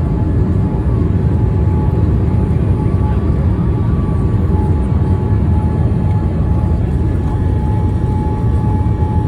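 Steady low rumble of airflow and engines heard inside the cabin of a Boeing 787 Dreamliner in flight, with a faint steady high whine over it.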